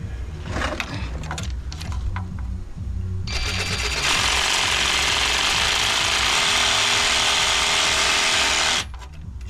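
A power saw cutting metal. It starts about three seconds in, runs steadily for about five and a half seconds and cuts off suddenly, after a few sharp clicks and scrapes of tools.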